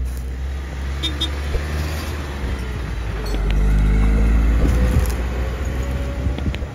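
Heavy diesel engine running with a deep rumble, growing louder from about three seconds in and easing off near the end.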